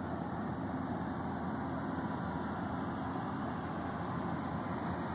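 Steady low engine hum, like an idling motor, with a faint constant low tone and no distinct events.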